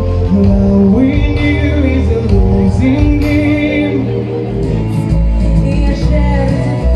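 A man singing a song live into a microphone over amplified backing music with a steady bass, holding long notes. About two-thirds of the way through, the music changes to another song.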